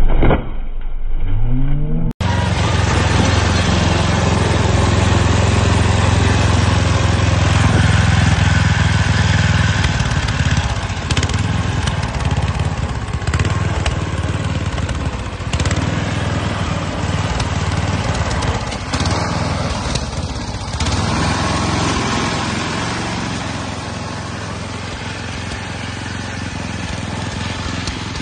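Small engine of a homemade mini off-road buggy running as it drives through a muddy forest creek, easing off somewhat in the last few seconds. Before it, briefly, another vehicle's engine revs, cut off abruptly about two seconds in.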